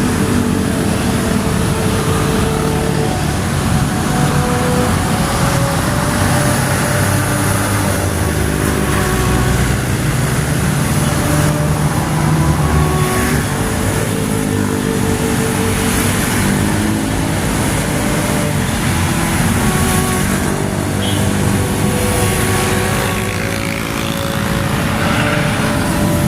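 A car driving on a rain-wet road: steady engine and tyre noise with a constant hiss.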